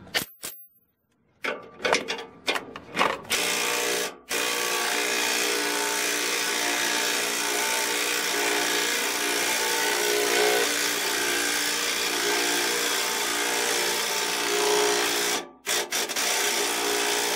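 Makita 18V subcompact 3/8-inch impact wrench hammering steadily as it turns a scissor jack's screw through an extension, straining against the truck's weight and unable to lift it off the ground. It starts with a few short trigger blips, drops out briefly, then runs continuously before stopping, with a few short bursts near the end.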